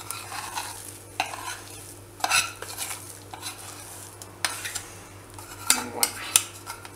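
A spoon scraping a thick roasted besan-and-ghee mixture out of a steel kadhai into a ceramic bowl. There are a few sharp knocks of the spoon on the pan, with a quick cluster of them near the end.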